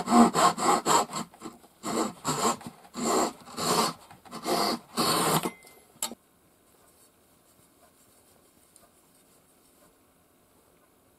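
Fine-toothed Japanese hand saw cutting protruding wooden dowel pins off flush with a board: quick, even rasping strokes that slow into five or six separate strokes. The sawing stops with a sharp click about six seconds in, then near silence.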